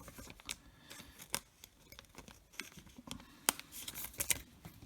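Baseball cards being handled and flipped by hand: light scattered snaps and rustles, with a sharper snap about three and a half seconds in.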